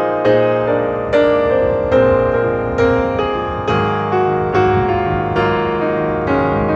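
Background piano music: slow, evenly paced notes, each struck and left to ring out, about one new chord or note a second.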